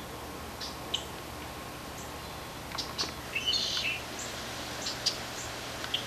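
Small birds chirping: short high chirps at irregular intervals, with a longer twittering call about three and a half seconds in.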